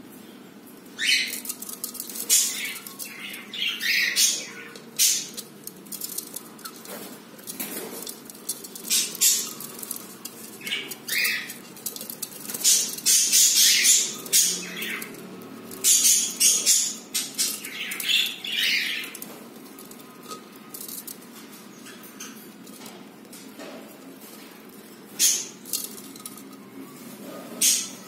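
Budgerigars in a nest pot giving short, harsh chirps and squawks in quick clusters, with feather rustling. The calls are dense for most of the time and thin out to a few near the end.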